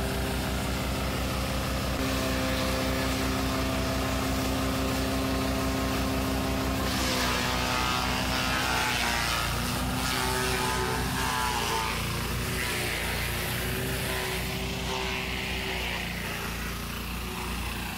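Small stationary engine running a forage chopper steadily as dry corn stalks are fed in to be chopped for silage. From about seven seconds in the engine's pitch sags under the load and a hissing of shredding stalks rises for a few seconds, then eases.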